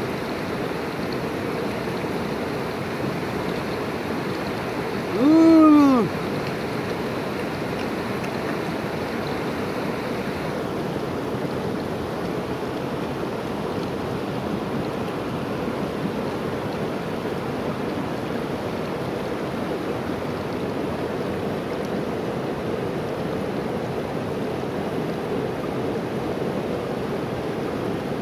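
Steady rush of a fast-flowing, rocky mountain river. About five seconds in, a short vocal hum rises and falls in pitch.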